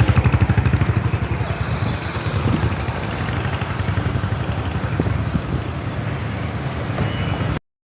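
Motorcycle engine running with a rapid low pulsing that is strongest in the first couple of seconds and then settles to a steadier rumble. The sound cuts off suddenly shortly before the end.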